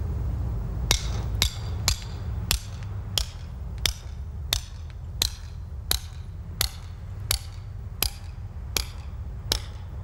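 Steady hand-hammer blows on a steel hand drill cutting a hole into chimney brickwork for a ladder hook, about fourteen sharp metallic strikes at an even pace of roughly three every two seconds.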